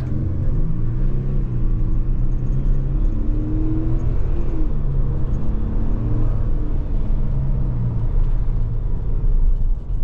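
2022 Toyota Tundra's twin-turbo V6 under full-throttle acceleration, heard from inside the cab with the engine sound enhancement switched off, so there is no synthetic exhaust sound from the speakers. The engine note climbs in pitch and steps back down several times as the truck shifts up through the gears.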